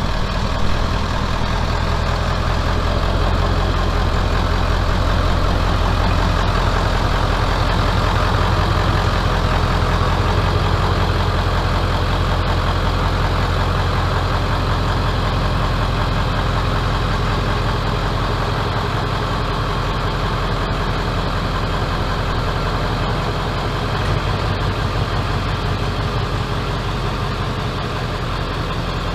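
A 1997 Ford F-350's 7.3 Powerstroke turbo-diesel V8 running at a steady idle as the truck is backed slowly into a shop bay.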